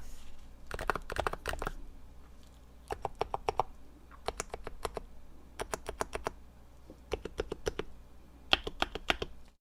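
Typing on a Topre keyboard, a Novatouch in a Norbatouch case with MT3 keycaps, 45 g domes, number 3 silencing rings and Sorbothane fill. Keystrokes come in about six short, quick runs with brief pauses between them.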